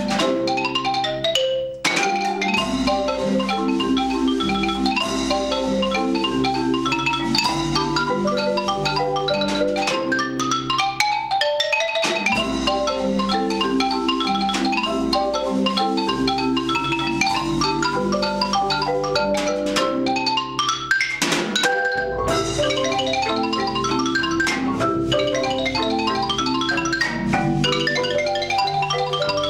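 Ragtime played by a mallet-percussion ensemble: a xylophone runs a fast, busy melody over marimbas that keep up a steady chordal accompaniment. The low chords drop out briefly about 2, 12 and 22 seconds in.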